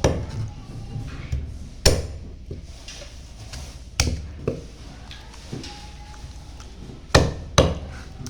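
A cleaver chopping chicken on a chopping block: about six sharp chops at an uneven pace, some in quick pairs and others two or three seconds apart.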